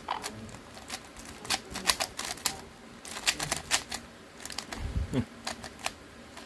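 Magnetic GAN 356 Air SM 3x3 speedcube being turned quickly: rapid, irregular clicks in quick clusters as the layers turn and snap into place. A low thump about five seconds in.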